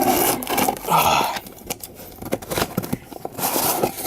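A shipping package being handled and opened: bursts of rustling and scraping, about a second in and again near the end, with scattered clicks and knocks.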